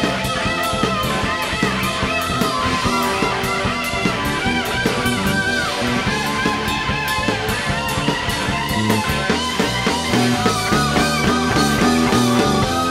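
Instrumental rock band playing live: electric guitar, drums, bass and keyboards, with a lead line that bends up and down in pitch over a steady drum beat.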